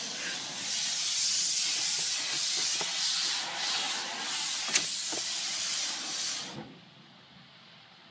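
High-pressure water jets of an automatic car wash hissing against the car's body, heard from inside the cabin, then stopping abruptly about six and a half seconds in. There is a single sharp knock a little before five seconds.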